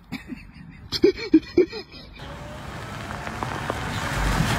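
Three short voiced cries from a person lying in snow, among a few soft knocks. Then a steady rushing noise of a small car driving over a snowy road, growing louder as it approaches.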